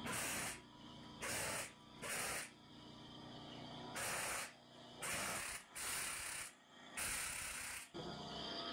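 Pneumatic air tool worked in short bursts: about seven blasts of compressed-air hiss, each half a second to a second long, with short pauses between.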